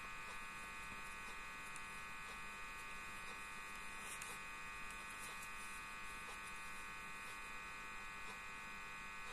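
A faint, steady electrical buzz made of many even tones, with a few faint ticks of metal knitting needles now and then.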